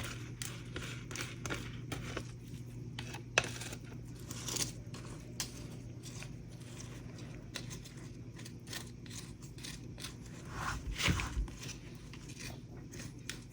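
Faint, scattered clicks and scrapes of small hard objects being handled on a work surface, with a sharper click about three and a half seconds in and a louder cluster about eleven seconds in, over a steady low hum.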